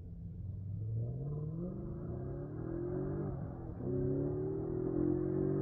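BMW 540i Touring's V8, with test pipes in place of the secondary cats, an X-pipe and short glass-pack mufflers, accelerating hard through the gears of its swapped-in six-speed manual. The engine note climbs, breaks for an upshift about three and a half seconds in, then climbs again.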